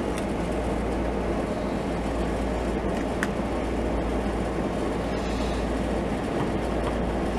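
Steady low background rumble, with a few faint clicks of hard plastic toy parts being moved and fitted by hand.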